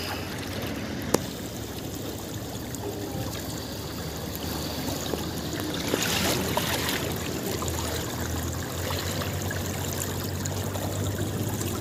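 Shallow river water flowing and lapping around a cloth net held low in the current, with a sharp click about a second in and a brief louder rush of water about six seconds in.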